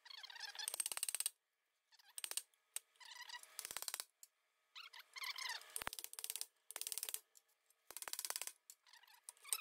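Faint bursts of rapid metallic clicking and squeaking, roughly one a second, as a press forces a seized bearing race out of a tractor front wheel hub.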